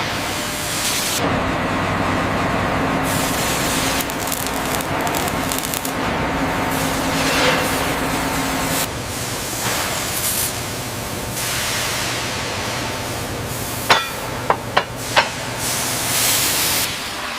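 Heavy-machinery factory noise: a steady hiss and machine hum, with four sharp metallic knocks in quick succession near the end.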